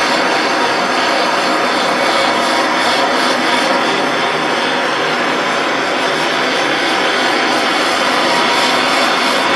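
Handheld gas torch burning with a steady hiss as its flame scorches the wood of a turned bowl.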